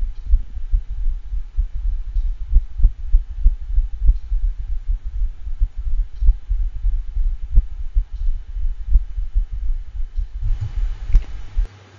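Stethoscope recording of a St. Bernard's heart: a fast, irregularly irregular beat over a steady low hum. This is the rhythm of atrial fibrillation, in a dog with dilated cardiomyopathy and congestive heart failure. The beats stop near the end.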